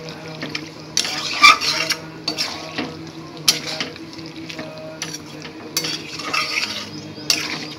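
Metal spatula scraping and turning chicken pieces in a metal kadai while they fry in oil, in irregular strokes about once a second, with a light sizzle. This is the kosha stage: the marinated chicken is being browned in oil.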